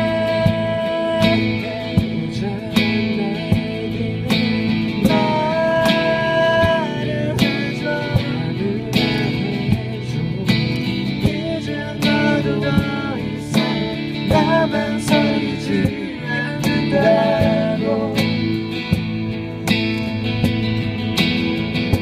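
Live acoustic band music: acoustic guitar strumming and keyboard, with cajon strokes keeping a steady beat and a singer carrying the melody.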